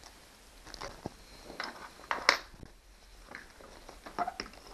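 Scattered clicks and knocks of small bolts, hardware and hand tools being handled against a trolling motor mounting plate on a fiberglass boat bow, with one sharper knock about two seconds in.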